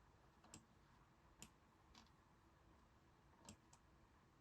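Near silence with about five faint computer mouse clicks, spaced irregularly, two of them close together about three and a half seconds in.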